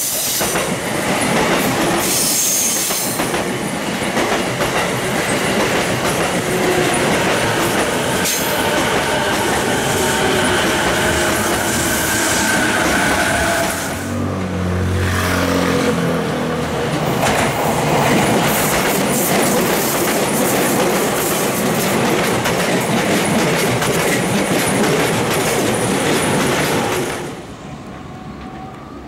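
Electric commuter trains passing at close range: steel wheels clattering over rail joints with wheel squeal, loud and dense. About halfway the sound changes to another passing train, and near the end it drops suddenly to a much quieter, more distant train.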